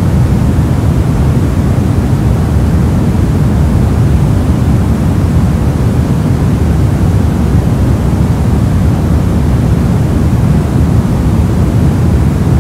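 Steady, unbroken soft noise, deep and heavy in the low end with little hiss on top.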